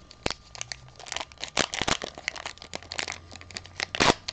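A MetaZoo trading-card booster pack's stiff foil wrapper being crinkled and torn open by hand: irregular crackles throughout, with the loudest tear near the end.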